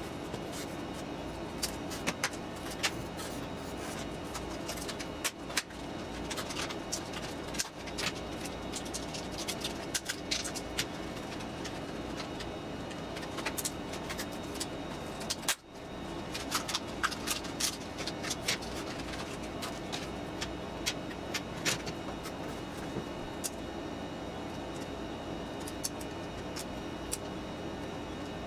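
Irregular small clicks and taps of hand tools and small parts being handled, over a steady background hum.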